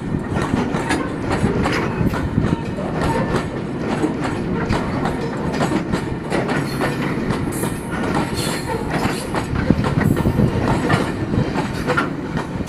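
Freight wagons of a very slow train rolling past close by: a steady rumble of steel wheels on rail, with irregular clicks and clanks as the wheels cross the rail joints.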